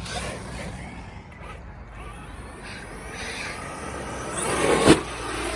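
ARRMA Kraton 8S RC monster truck's brushless motor running and building up, then one sharp hard impact about five seconds in as the truck hits or lands.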